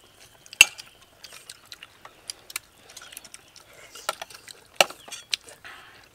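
Spoons and cutlery clinking and tapping on ceramic plates, with chewing, as several people eat. The sounds are scattered short, sharp clicks; the loudest comes about half a second in and another just before five seconds.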